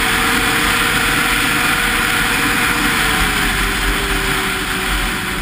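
Snowmobile engine running at speed under a steady rushing noise. Its whine sinks slightly in pitch in the last couple of seconds as the sled eases off.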